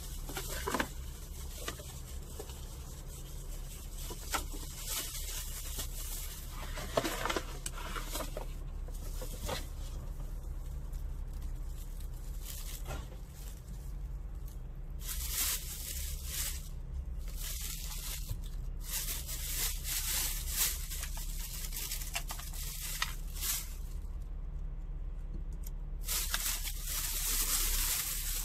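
Paper and plastic carrier bags rustling and crinkling in irregular bursts as takeaway food containers are lifted out and unwrapped, over a steady low hum.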